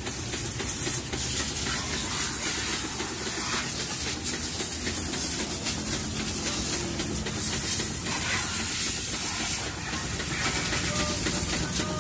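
High-pressure washer jet spraying a motorcycle: a steady hiss of water striking the front wheel and engine.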